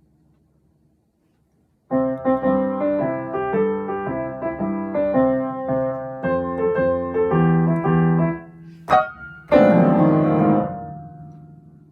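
Piano accompaniment for a toddler movement game. After a short pause it plays a light melody, then near the end a sudden loud low chord crash that rings and dies away, the piano's cue for thunder.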